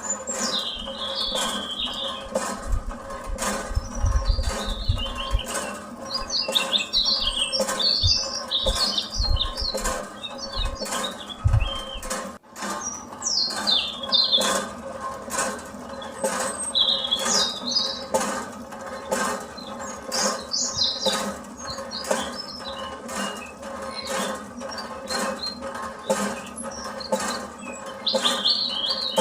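A small motor hums steadily under rapid, continuous clicking and rattling, with high squeaky chirps scattered throughout. Low thumps come in the first half, and there is a brief break about twelve seconds in.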